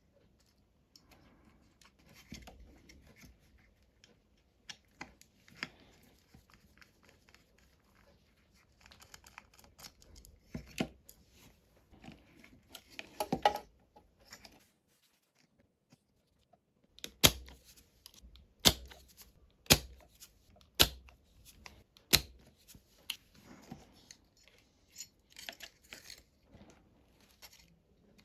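Small hand tools working on a guitar amplifier's output circuit board while the overheated output IC is being replaced: faint scraping and handling, then five sharp clicks about a second apart.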